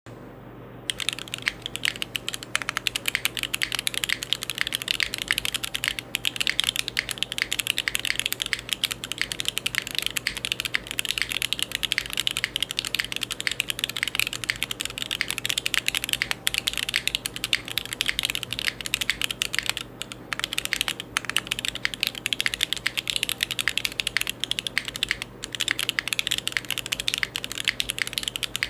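Continuous fast typing on a Neo65 Core+ gasket-mount custom mechanical keyboard with lubed Gateron Oil King linear switches in a carbon-fibre plate, no foam, and KKB Machinist keycaps: a dense stream of key clacks that starts about a second in, with a few short pauses.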